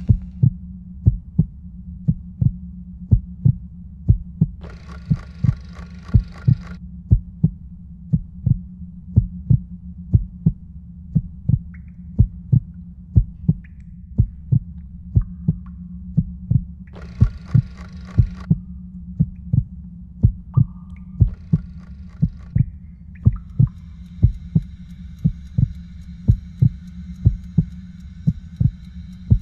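A slow heartbeat sound effect: a double thump about once a second over a steady low hum. Twice it is joined by a short hissing swell, and near the end a high steady ringing comes in.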